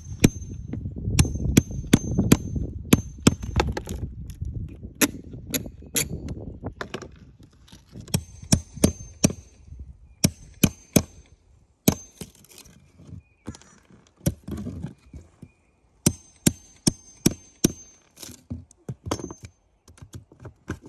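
Hammer striking a steel pry bar driven into plywood roof decking: dozens of sharp metallic blows in quick runs, some ringing high and clear.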